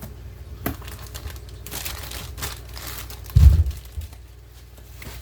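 A cardboard shipping box being opened by hand: its flaps and contents crinkling and rustling in short bursts, with a loud dull thump about three and a half seconds in.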